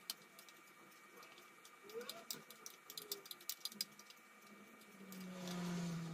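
Small sharp clicks and taps of hands handling a CPU tower cooler and its fan clips as the fans are fitted. About five seconds in, a louder low hum swells up.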